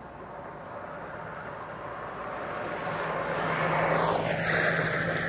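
Radio-controlled cars running on a dirt track, a steady engine-and-tyre noise that grows louder and peaks about four seconds in.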